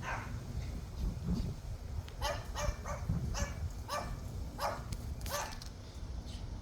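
A dog barking repeatedly: one bark at the start, then a run of about six barks from about two seconds in, roughly one every two-thirds of a second.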